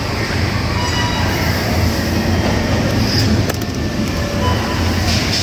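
Shopping trolley rolling over a supermarket floor, a steady rattling rumble.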